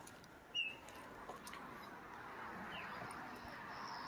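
Quiet outdoor ambience: one short, high bird chirp about half a second in, and a faint, high insect buzz near the end.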